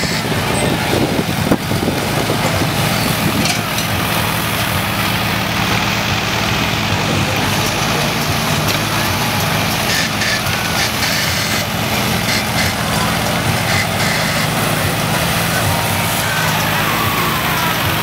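Survival Research Labs' Big Arm machine, its engine running steadily under load as it drives the hydraulic arm, with scattered metallic clanks as the steel frame swung on its cable strikes the ground.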